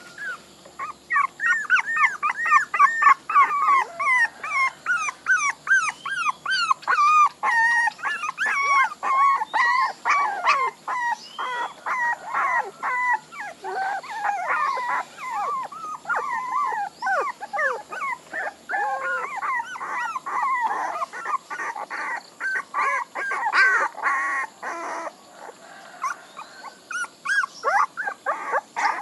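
Several young puppies whining and yelping, a rapid run of short high-pitched cries that overlap one another, with a brief lull near the end.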